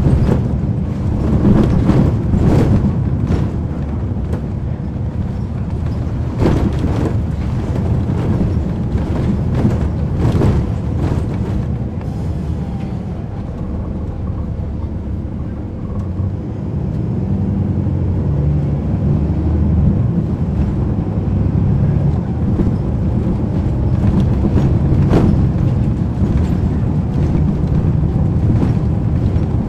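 Interior of a 2010 NABI 40-SFW transit bus heard from the rear seats: its Cummins ISL9 inline-six diesel running under way, with sharp knocks and rattles from the body, most of them in the first dozen seconds. The engine eases off about halfway through and pulls again a few seconds later.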